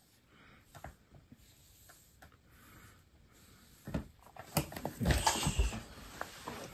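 Close handling noise, first quiet with a few faint clicks, then from about four seconds in a run of rustling and light knocks, loudest around five seconds in.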